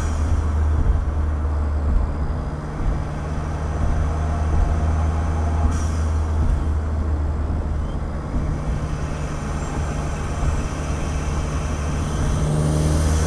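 A 2015 Ford Fiesta ST's turbocharged 1.6-litre four-cylinder engine and exhaust, heard close up at the engine bay and tailpipe, droning steadily while the car drives at a fairly constant engine speed. There is a short high hiss about six seconds in, and the engine note builds near the end.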